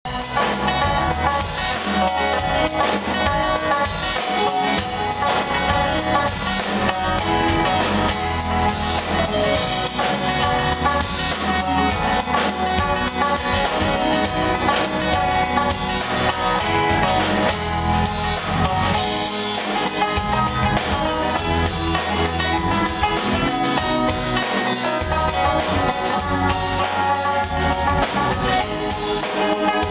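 Live band playing a song on banjo, acoustic and electric guitars, keyboard and drum kit, heard from the audience in the hall.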